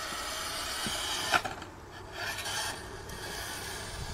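Scale RC crawler Jeep crawling over gritty dirt: tyres scraping and grinding, with the drivetrain whirring and a short rising whine a little after two seconds. A sharp click about a second and a half in is the loudest moment.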